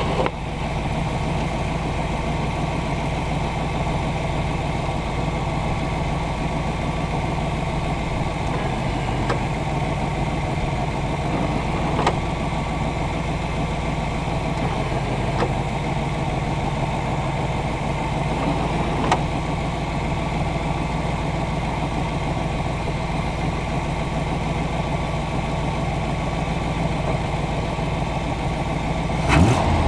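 The Firebird's 305 V8 idling steadily, heard from inside the engine bay, with a few faint clicks. Near the end the engine is briefly revved.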